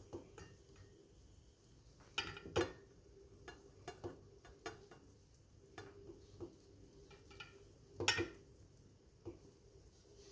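Scattered light knocks and clinks of food and utensil against a ceramic baking dish as broccoli florets are moved about in it, with the loudest knocks about two seconds in and again about eight seconds in.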